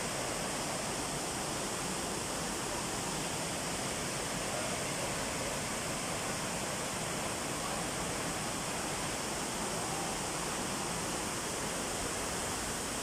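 Waterfall: water falling and splashing as a steady, even rush.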